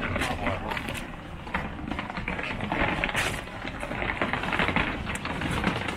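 Footsteps on a wet, snowy sidewalk: a run of irregular crackling clicks over steady street noise, busiest around the middle.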